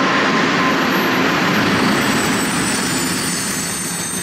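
Container freight train rolling past: steady rumble and hiss of the wagons' wheels on the rails, easing slightly near the end.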